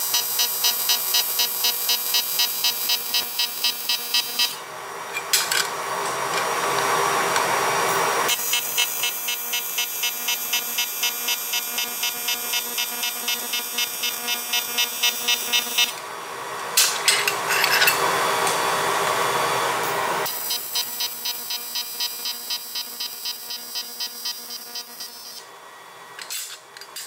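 AC TIG welding arc on aluminium: a steady electrical buzz that pulses a few times a second. Twice it breaks off for a few seconds, leaving a hiss with a few clicks, and it fades out near the end.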